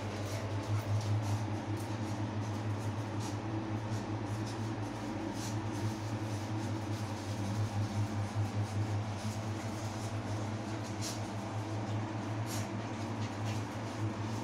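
A steady low mechanical hum, with faint scattered clicks and scuffs over it.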